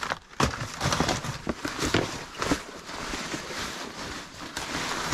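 Rustling of clothing and gift bags being rummaged through by hand, with scattered light knocks and taps.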